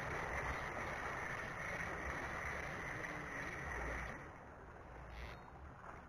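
Steady rush of wind and small waves lapping at a rocky shoreline, with irregular low rumble from wind on the microphone; it drops off about four seconds in, and a faint click follows about a second later.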